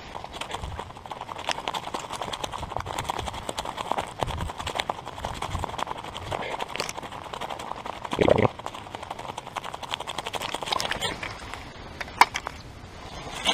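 Footsteps walking through dry grass and underbrush: a steady crunching and swishing of stems and leaves underfoot, with one louder brush about eight seconds in.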